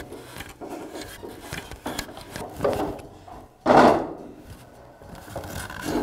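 Handling noise from an MK Diamond tile saw's head assembly being lifted off its post and set down on the frame: metal parts rubbing and scraping, with light knocks. A little past the middle comes one louder knock and scrape lasting about half a second.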